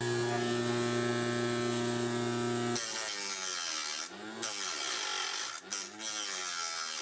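Home-built cut-off saw's 895 DC motor spinning its cutting disc with a steady whine, then, about three seconds in, the disc bites into an aluminium pipe and the sound turns to a rough grinding. The motor's pitch wavers up and down during the cut as the disc vibrates, a vibration problem this saw has.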